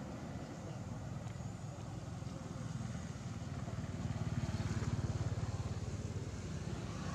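An engine running steadily with a low, even pulse, growing louder about four seconds in.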